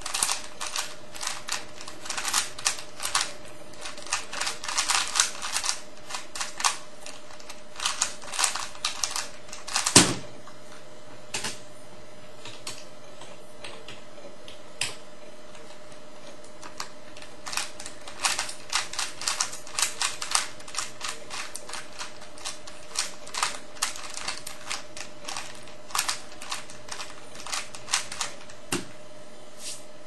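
Rapid plastic clicking and clacking of a 3x3 Rubik's cube with Cubesmith tiles being turned fast, in dense runs with a sparser stretch in the middle. A single loud thump comes about ten seconds in, and a smaller one near the end.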